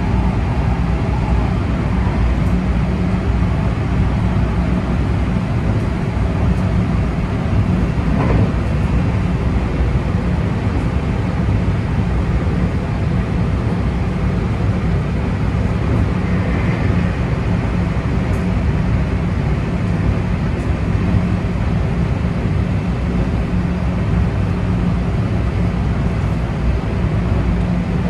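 JR West 223 series 2500 electric train running at speed, heard from inside the leading car: a steady, heavy rumble of wheels on rail and underfloor running gear, with a faint click about eight seconds in.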